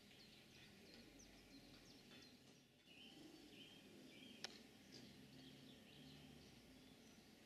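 Faint birdsong: many small birds chirping, with a few short whistled notes, over quiet outdoor background noise. One sharp click about four and a half seconds in.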